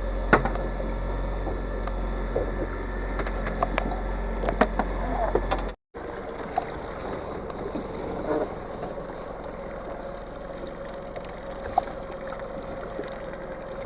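Boat motor running steadily with water and hull noise and scattered knocks. The sound drops out abruptly about six seconds in, then gives way to a quieter steady hiss with occasional clicks.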